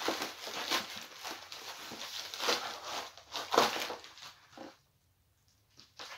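Plastic shipping mailer rustling and crinkling as it is pulled open by hand and a boxed graphics card is slid out; the rustling stops about three-quarters of the way through, followed by a couple of small clicks.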